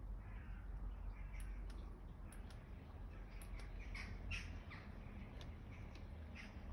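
A garden-railway model locomotive running slowly over track and points, its wheels giving scattered light clicks, with birds calling in the background about four seconds in.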